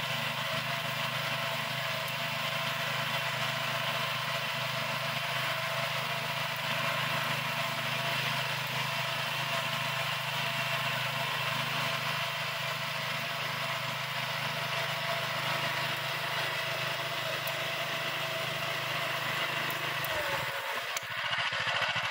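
Kamco walk-behind reaper's small petrol engine running steadily as the machine cuts through a standing crop. Near the end the steady engine note falls away and the sound changes.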